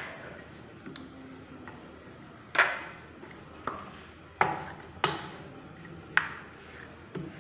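Dough being rolled out on a round stone rolling board: a rolling pin knocking and clacking against the board, several sharp knocks with short ringing tails at uneven intervals, the loudest about two and a half and five seconds in, with soft rubbing between.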